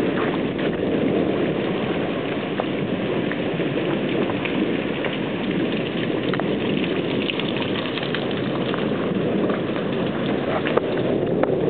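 Steady rain falling, a continuous hiss with many small drop ticks scattered through it.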